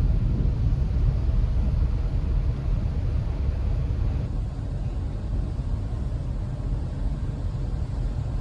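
Steady low rumble of the ferry Sunflower Furano underway at sea, with a fainter rushing hiss above it that thins a little about halfway through.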